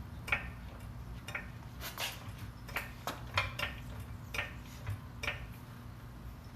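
Scattered light clicks and taps, roughly one a second with some close pairs, over a steady low hum.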